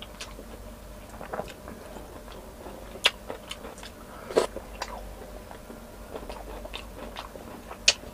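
A person eating chicken caldereta by hand, chewing with wet mouth noises and a few sharp smacks or clicks, the loudest about three, four and a half and eight seconds in.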